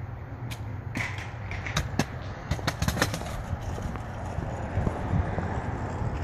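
Wind rumbling on a phone microphone, with a cluster of sharp clicks in the first three seconds.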